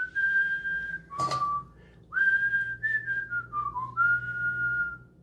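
A person whistling a short tune in several phrases of held notes and notes stepping down in pitch, with a brief sharp noise about a second in.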